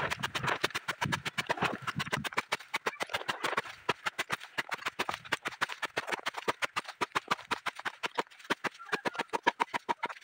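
A blade chopping leafy green stems against a wooden stump, a rapid, steady run of sharp strikes about five a second, cutting the plants into small pieces for compost.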